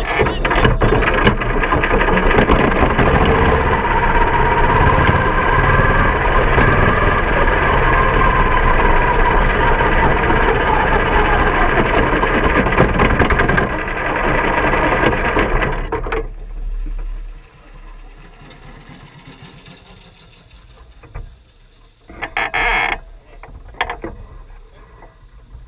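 Quarter midget race car's small single-cylinder engine running hard, heard from an onboard camera on the car. After about sixteen seconds it drops away as the car comes to a stop, leaving only a brief sound a few seconds before the end.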